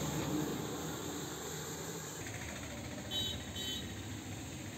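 Road traffic rumbling steadily close by, with two short high-pitched sounds about three seconds in.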